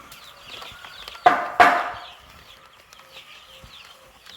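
A flock of young chickens peeping and cheeping steadily, with two loud, short squawks about a second and a half in.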